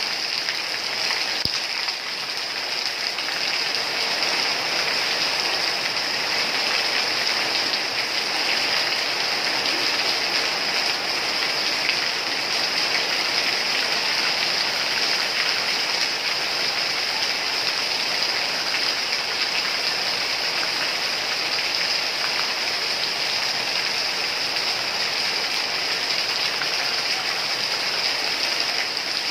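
Steady rain falling, an even, unbroken hiss of many drops.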